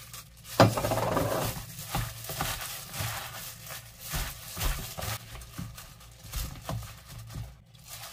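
Fresh lettuce and sesame leaves being mixed by hand in a plastic bowl with a chili-garlic dressing, in a plastic glove. Irregular rustling and crinkling of leaves and glove, with a sharp knock about half a second in.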